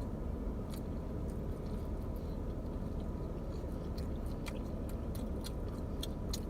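Close-miked chewing and biting of soft, saucy pizza, with scattered short wet mouth clicks over a steady low background hum.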